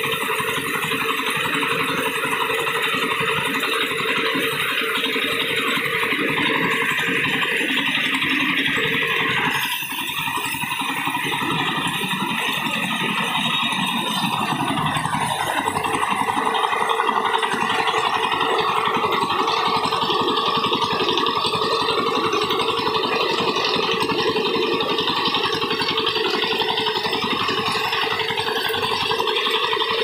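Mini paddy thresher running, its wire-loop threshing drum rattling steadily and fast as bundles of rice stalks are held against it to strip off the grain.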